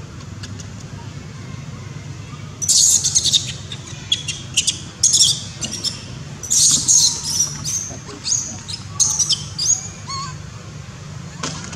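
Young long-tailed macaque screaming in shrill, high-pitched bursts that start about two and a half seconds in, repeat many times, and die away near the end. These are distress screams of a big infant being rebuffed by its mother as she weans it.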